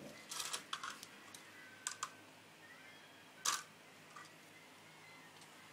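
Hard plastic Lego pieces clicking and knocking as the fire truck model is handled: a quick run of clicks in the first second, two more about two seconds in, and the loudest knock about three and a half seconds in.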